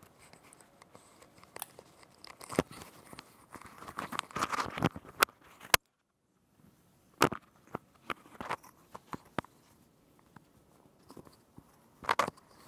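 Clip-on microphone being handled and unclipped from clothing: close rustling and scraping with sharp clicks and knocks. The signal cuts out completely for a moment about six seconds in.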